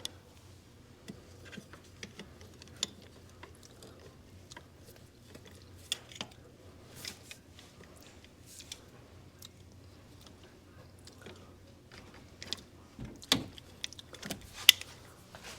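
Irregular metallic clicks and clinks of hand tools and bolts, with two sharper knocks near the end, while the air-conditioning compressor is unbolted and worked loose.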